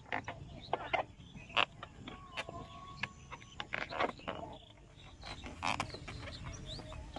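Inflated rubber balloon squeaking and creaking as fingers rub and twist its knotted neck, in short irregular squeaks.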